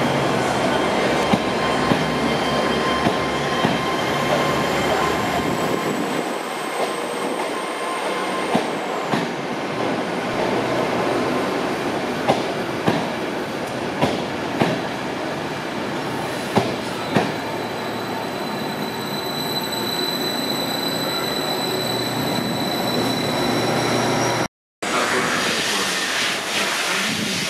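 Passenger train coaches rolling slowly past alongside the platform, a steady rumble with wheels clicking in pairs over rail joints. A thin high wheel squeal comes in later, and the sound drops out briefly near the end.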